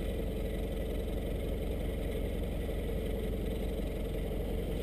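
Land Rover engine idling steadily while the vehicle stands still.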